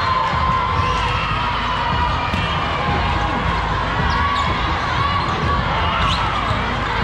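Steady, echoing din of a big hall full of volleyball games: volleyballs being hit and bouncing on the courts, sneakers squeaking, and a crowd chattering.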